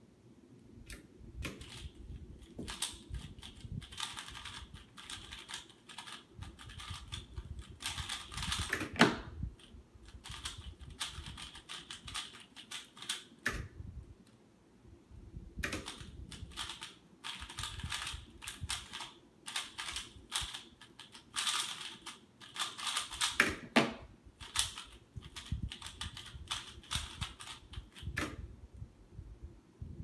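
A 3x3 speedcube being turned very fast: rapid plastic clicking and clacking of the layers in two long runs with a short pause between, and a louder knock near the end of each run.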